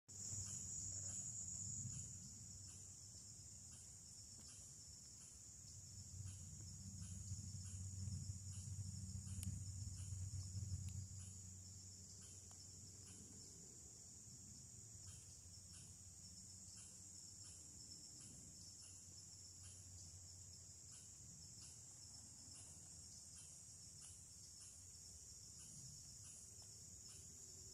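Steady, high-pitched chorus of insects such as crickets, with a faint regular pulsing in it. A low rumble swells under it in the first two seconds and again from about six to eleven seconds in.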